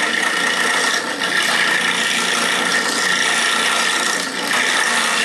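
Motorized coconut grater running steadily, its spinning head rasping the meat out of a coconut half held against it.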